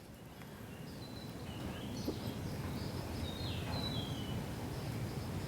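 Low, steady background noise that swells slowly, with a few faint, short bird chirps around the middle.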